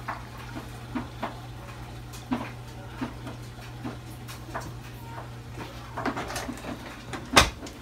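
Kitchen handling sounds while scissors are fetched: scattered light clicks and knocks, with one sharp knock near the end, over a steady low hum.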